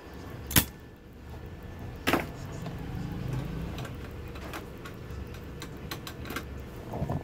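Two sharp clicks, about half a second and two seconds in, then a low rumble with a few lighter ticks: workbench handling noise as a soldering iron is lifted off a TV power-supply circuit board and set aside.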